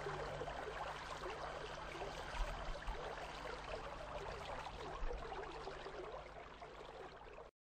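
Faint, steady hiss of outdoor ambience with small scattered sounds in it, cutting off abruptly to silence near the end. The last of a music track fades out in the first half-second.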